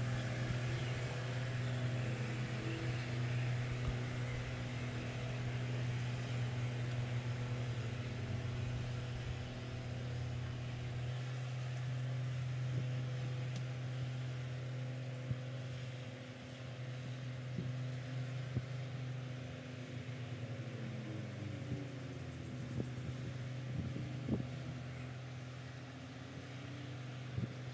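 Steady low drone of a boat engine on the river, running evenly, with a few light knocks.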